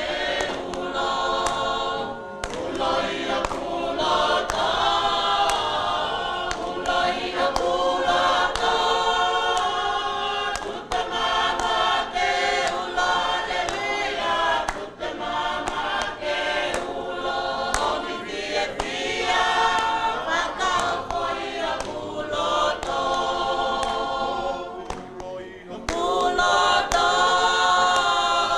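A congregation of men and women singing a hymn together in Tongan, in full voice, with short breaks between phrases.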